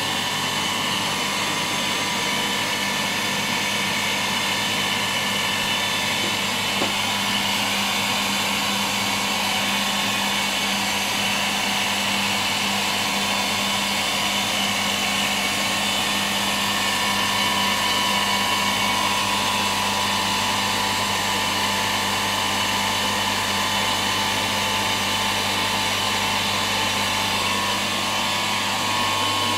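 A small electric motor running steadily with a constant hum and whine.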